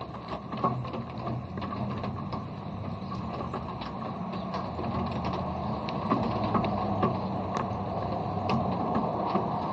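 Steady rain with many separate drops ticking sharply close to the microphone, over a faint low hum.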